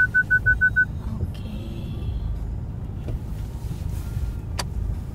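A car's parking-sensor beeping fast, about seven beeps a second, then stopping about a second in. A steady low rumble of the car and wash machinery comes through the cabin the whole time, with a single sharp click near the end.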